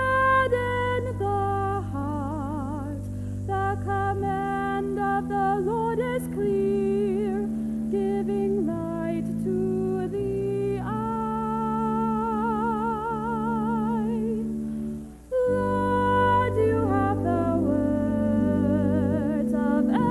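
A woman cantor sings the responsorial psalm with a wide vibrato over sustained accompanying chords that change every few seconds. There is a short break between phrases about fifteen seconds in.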